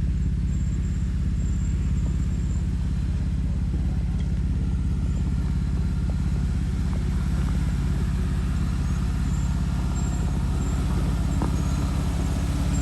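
Off-road 4x4's engine running steadily at low revs, with no revving.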